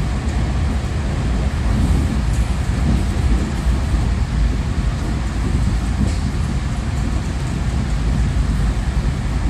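Moving electric commuter train heard from inside the carriage: a steady, low rumble of the running train.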